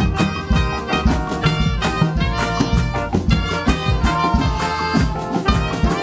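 Upbeat praise music with brass and a steady drum beat.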